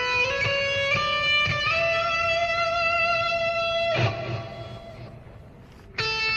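Background music led by electric guitar, with sustained chords over a steady beat. About four seconds in it drops away almost to nothing, then comes back in abruptly near the end.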